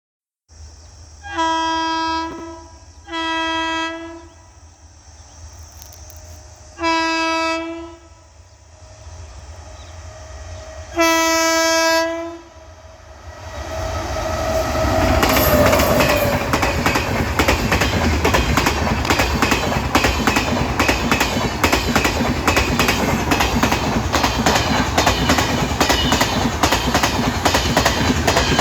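Indian Railways WAP-7 electric locomotive sounding its horn in four blasts of about a second each. From about thirteen seconds in, the train passes close at speed: a loud, rising rumble with rapid clatter of the LHB coaches' wheels over the rail joints.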